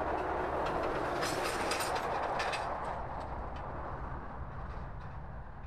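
Distant passing vehicle: a steady rushing noise with scattered light clicks, loudest in the first half, then slowly fading away.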